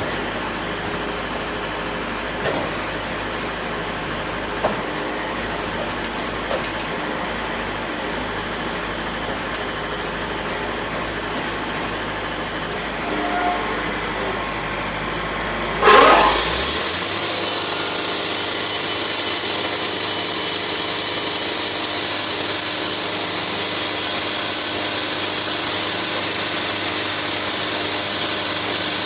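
Sawmill running steadily, with a few light knocks. About halfway through, the sound jumps suddenly to a louder, steady, hissing cut as the saw goes into an oak log.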